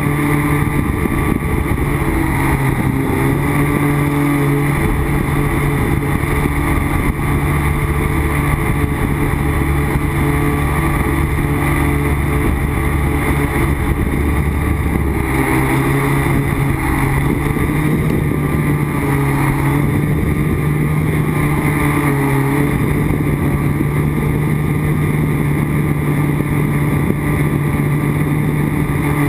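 Quadcopter's electric motors and propellers buzzing, heard close from the onboard camera. The pitch dips and rises a few times as the throttle changes.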